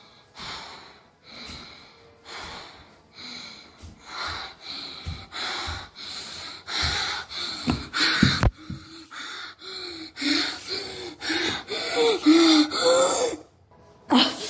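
A person breathing heavily right at the microphone, each breath a loud rasping gasp. The breaths grow faster and louder, and near the end some turn into voiced, whimpering gasps.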